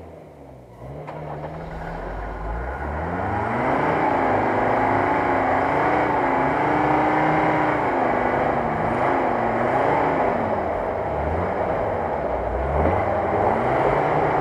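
UAZ-469's engine revving hard under load while the stuck vehicle tries to climb out of a rocky creek bed. The revs climb over the first few seconds, hold high and waver, drop about ten seconds in, then climb again near the end.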